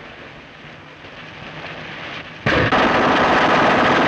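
Thompson submachine guns open fire about two and a half seconds in: a sudden, loud, continuous rattle of rapid shots after a stretch of faint low noise. The recording is an early-1930s film soundtrack.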